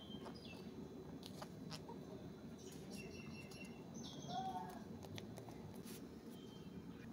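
Faint rustling and light taps of paper and cardstock as a printed label is handled and pressed onto a folded card, with several short bird chirps in the background, the loudest a little after the middle.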